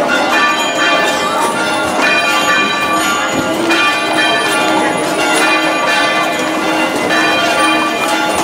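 Bells pealing, struck again and again, with several pitches ringing on over one another.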